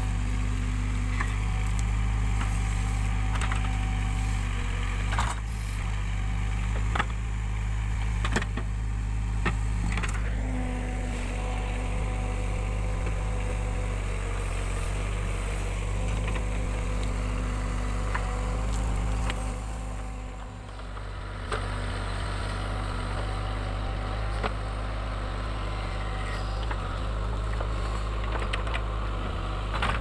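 Backhoe loader's diesel engine running steadily under digging load as the rear bucket excavates soil around concrete piles, with occasional short knocks and clanks from the bucket and arm, most of them in the first half.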